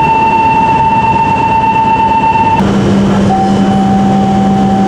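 A steady electronic warning tone sounds while an E5 series Shinkansen car's door stands open at the platform. It cuts off abruptly about two and a half seconds in, as the door slides shut. A low steady hum and a second, slightly lower steady tone then take over.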